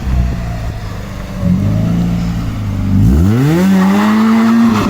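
Car engine running, then revving up sharply about three seconds in and holding at the higher revs.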